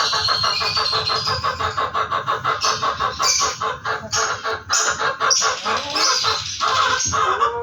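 Chickens clucking in a fast, steady run of short calls, with sharp high chirps mixed in from about three seconds in.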